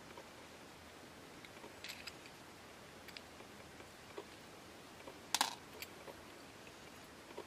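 Small brass parts of an Optimus 1200M lantern's pressure-pump plunger clicking and clinking in the fingers as the pump plate is taken apart. A few faint scattered clicks, with the loudest little clatter about five seconds in.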